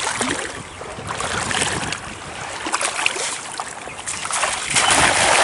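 Shallow river water running and sloshing, with a louder rush of splashing water about five seconds in.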